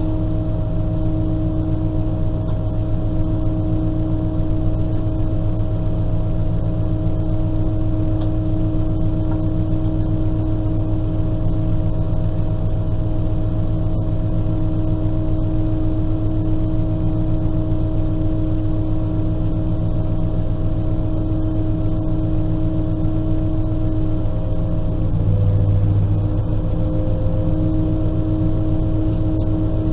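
SNCF X 73500 diesel railcar's engine idling steadily while the train stands at a station, heard from inside the driver's cab. The engine note shifts briefly about 25 seconds in.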